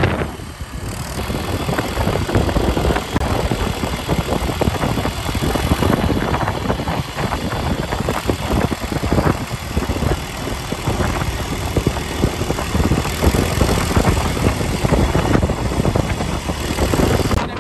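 A motor vehicle's engine running steadily under way, with a rough, uneven rumble.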